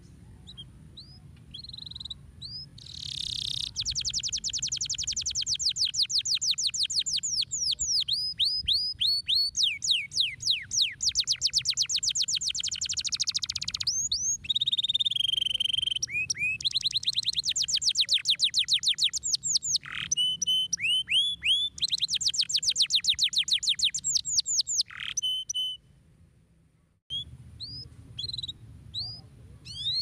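Domestic canary singing: scattered chirps build into a long song of fast, high trills of rapidly repeated notes, broken by short pauses. Near the end the song drops out briefly and then goes back to scattered chirps.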